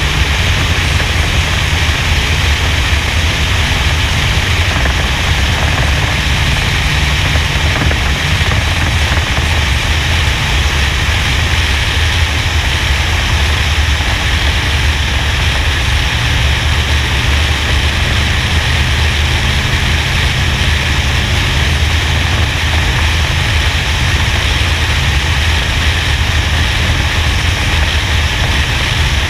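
NASCAR stock car's V8 engine running at speed on track, heard through a roof-mounted action camera as a steady low drone under heavy wind rush on the microphone. The lifts off the throttle and the return to full throttle through the corner barely come through.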